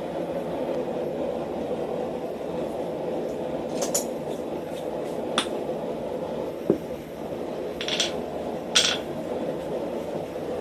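Steady roar of a running forge, with a few scattered light metallic clinks and scrapes in the middle and later part.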